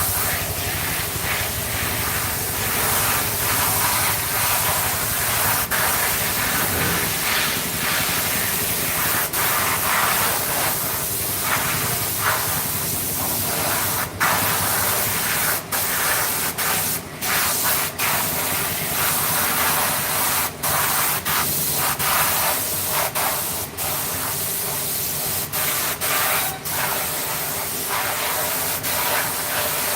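Compressed air hissing from a spray nozzle in long bursts, cut by brief pauses several times.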